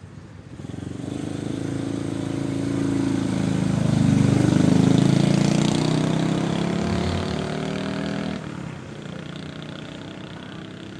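A motor vehicle's engine passing by: it grows louder over a few seconds, is loudest about four to five seconds in, then fades away, its pitch easing down slightly as it goes.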